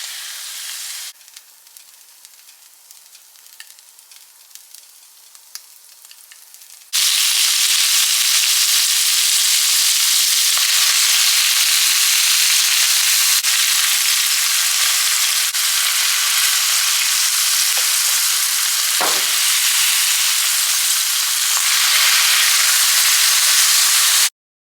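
Tomato and melon seed stew frying in oil in a pot, with a steady sizzle. It drops to a faint crackle about a second in, comes back loud a few seconds later, and cuts off abruptly near the end.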